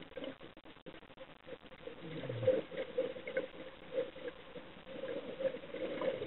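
A scuba diver's exhaled air bubbling from the regulator underwater, an irregular bubbling patter.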